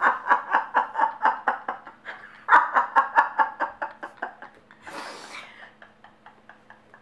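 Two women laughing hard together in quick rhythmic bursts, with a fresh loud outburst about two and a half seconds in, then tapering off into breathy gasps and fading chuckles.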